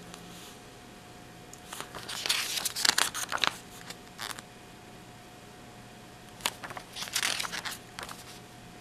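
Paper pages of a booklet being turned and handled, rustling in two spells a few seconds apart.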